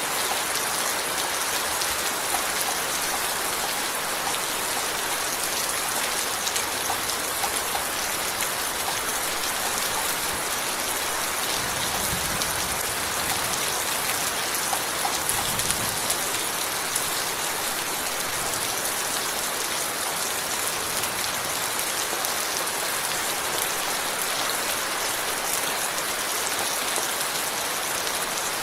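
Steady, heavy rain falling, a dense even hiss of many fine drops striking a surface.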